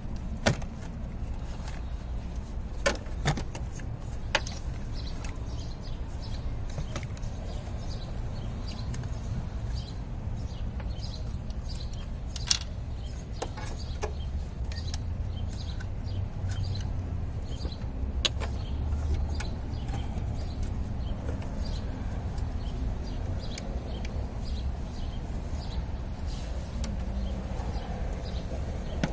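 Metal hand tools (a socket and extension) clicking and clinking against the engine and each other while spark plugs are worked on, scattered sharp clicks, several in the first few seconds and more spread out later. Under them runs a steady low rumble.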